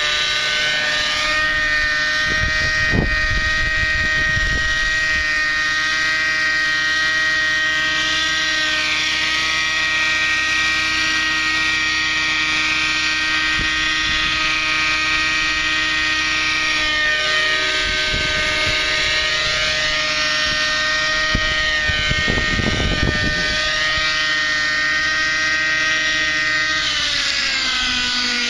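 Thunder Tiger 30-size nitro RC helicopter in flight: its two-stroke glow engine and rotors run with a steady high whine, with a few bursts of low rumble. Near the end the engine note drops as it throttles down to land.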